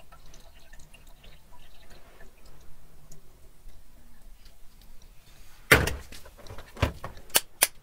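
Faint small clicks of handling, then a sharp knock about six seconds in, a second knock a second later, and a quick run of sharp clicks near the end: giant African land snail shells knocking against each other and the plastic tray as they are handled.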